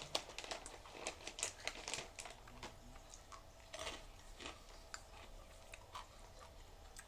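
Scattered quiet crinkles and crunches of snack food being handled and eaten: a wrapper rustling and crisp food crunching, a few distinct crackles about four to four and a half seconds in.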